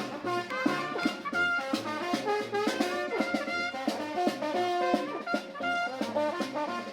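Live brass band playing, horns carrying a quick melody over a steady drum beat.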